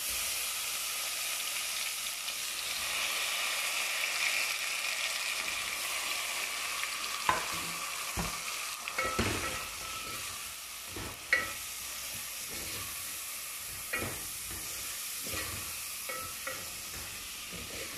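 Soaked, drained rice hitting hot oil in a steel pot, sizzling: the hiss starts suddenly and slowly eases. From about halfway on, a wooden spoon stirs the rice, knocking against the pot now and then.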